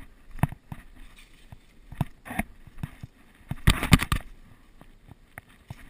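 Irregular thuds and rustling of a player moving fast through brush and dead leaves, with a denser flurry of crackling impacts about three and a half seconds in.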